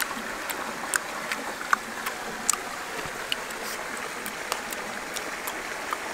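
Steady rush of flowing river water, with short sharp clicks at irregular spacing, about two a second, from a boy chewing and smacking his lips close by.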